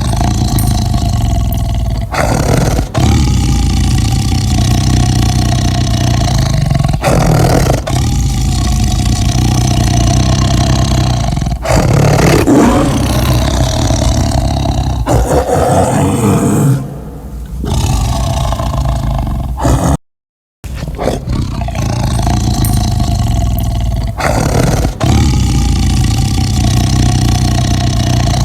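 Big cat roaring loudly and almost without pause, cut off by a brief silence about twenty seconds in before carrying on.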